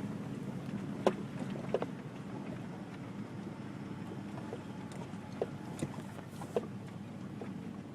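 Vehicle running slowly, a steady low drone, with a few sharp knocks and rattles.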